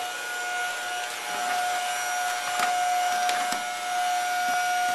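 Upright vacuum cleaner running steadily, its motor holding one constant high whine over a rushing hiss, with a few sharp knocks in the middle.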